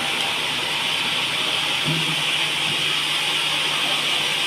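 Band sawmill sawing a large teak log: a steady rushing saw noise, with a low motor hum joining about two seconds in.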